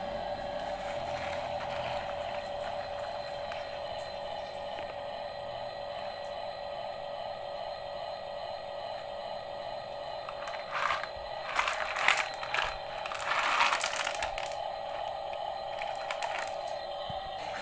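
Toy excavator's small electric motor whining steadily. About eleven to fourteen seconds in come a few short bursts of scraping and rattling as crushed stone is scooped or tipped.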